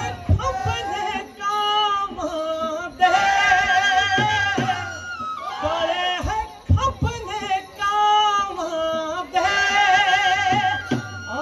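Punjabi folk song accompanying a jhoomar dance: a singer's long, wavering held notes over a steady beat of drum strikes.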